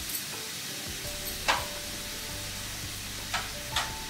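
Steady hiss of water heating on the stove in a non-stick pan, being brought toward the boil, with a few light clicks about a second and a half in and near the end.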